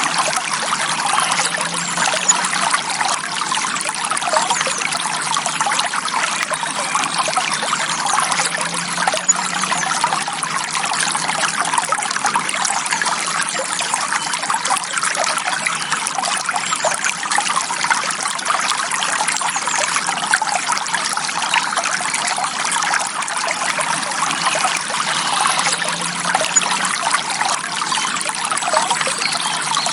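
Forest stream flowing with a steady, even trickle of water.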